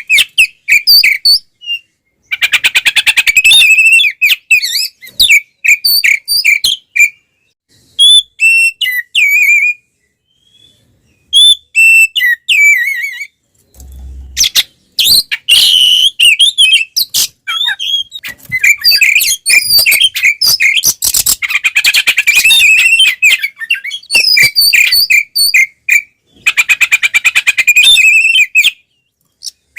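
Oriental magpie-robin (kacer) singing loud, varied song: rapid trills and chattering runs mixed with clear whistled notes, in phrases broken by short pauses. It is the bird's aggressive, fighting-mode full song.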